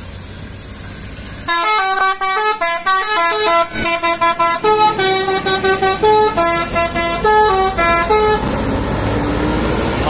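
Intercity coach's telolet horn playing a fast tune of short notes, several pitches sounding together and hopping up and down. It starts about a second and a half in and stops near the end, over the bus engine running.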